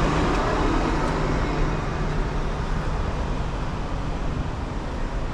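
Steady city street traffic noise, with a passing vehicle's low engine hum fading away over the first two seconds or so.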